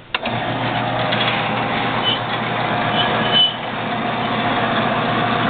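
Vectrax 7" x 12" horizontal metal-cutting bandsaw starting with a click and then running steadily, motor and blade going at full speed, with a faint hum and a few brief high squeaks.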